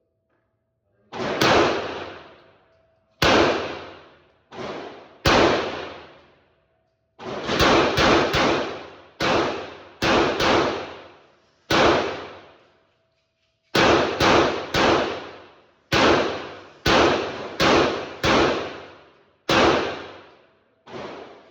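Airsoft Glock 22 replica pistol firing about twenty single shots at an uneven pace, some in quick runs of two or three. Each is a sharp crack that rings out for about a second.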